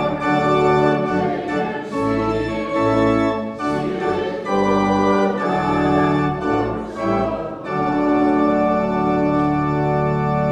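Organ playing a slow succession of sustained chords over deep bass notes, the chords changing every second or two.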